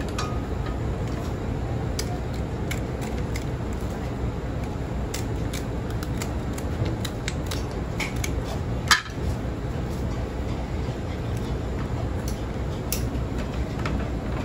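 Kitchen scissors snipping through the shells of cooked Alaskan king crab legs: irregular sharp snips and cracks over a steady low hum, with the loudest crack about nine seconds in.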